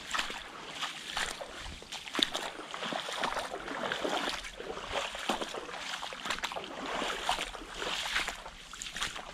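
Boots splashing and sloshing through ankle-deep floodwater, step after step.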